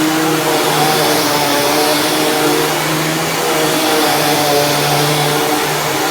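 Dirt Devil Ultra Vision Turbo upright vacuum cleaner running on carpet: a steady motor and airflow noise with a low hum that swells and fades every second or so.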